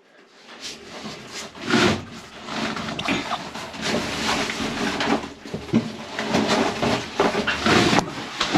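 Irregular knocking, scraping and rustling of hands working around fittings, with no steady machine sound.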